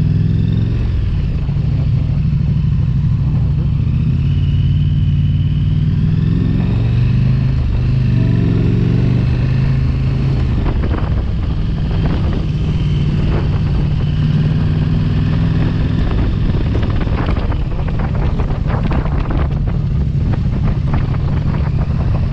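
Motorcycle engine running under way, its pitch shifting a couple of times in the first half as the speed changes. Rapid crackling noise joins it through much of the second half.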